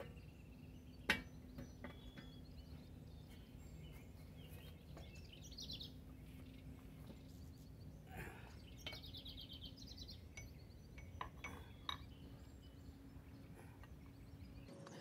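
Faint metal clinks and knocks from a post hole digger's bracket and hitch pin being worked into place on a tractor's three-point hitch: two sharp knocks about a second apart at the start, a few lighter clinks later. Birds chirp in the background.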